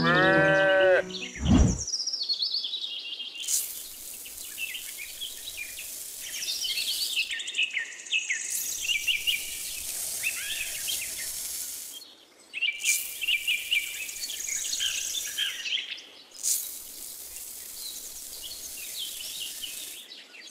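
Small birds chirping and singing over a steady high hiss, in four stretches of a few seconds each with short breaks between. It opens with a short pitched swoop and a falling whoosh.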